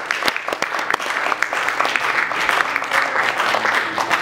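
Audience applauding, many hands clapping steadily after a choir's song.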